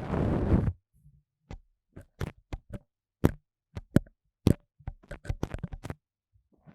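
Pipe cleaners rubbed and scratched against a binaural microphone's ear: a short dense rustle at the start, then a string of sharp, separate crackles and scratches with brief silences between them.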